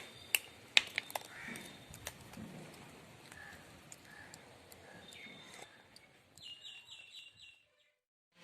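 Several sharp clicks or knocks, then a quick run of about five high chirps from an animal. The sound cuts out near the end.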